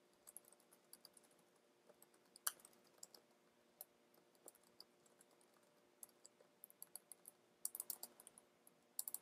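Faint typing on a computer keyboard: scattered single keystrokes, one sharper tap about two and a half seconds in, and quick runs of keys near the end.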